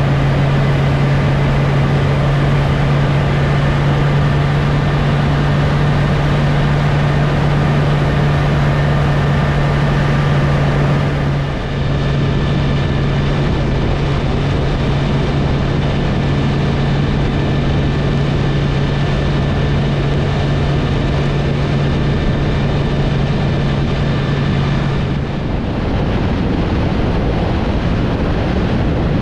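Motorcycle engine running at a steady cruising speed under loud wind noise on the microphone. The engine note dips briefly about twelve seconds in, and near the end the engine hum drops away, leaving mostly wind rush.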